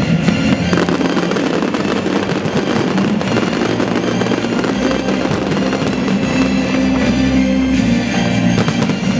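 Fireworks shells bursting and crackling in quick succession, mixed with loud music.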